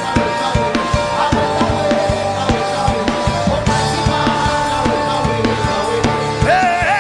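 Worship band music with a steady drum-kit beat under sustained keyboard chords; a singing voice comes in near the end.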